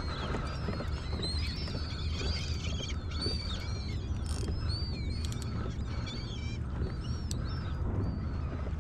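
Many birds calling at once, short high chirping calls overlapping throughout, over a steady low rumble.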